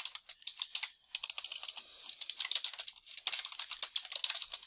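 Typing on a computer keyboard: fast runs of key clicks, with short breaks about a second in and again about three seconds in.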